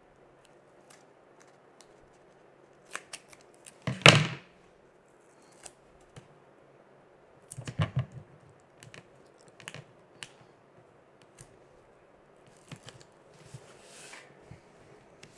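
Scissors snipping through a strip of foam mounting tape, heard as a few short, separate clicks, the loudest about four seconds in. Later come lighter clicks and a faint rustle as the tape and a small paper tag are handled.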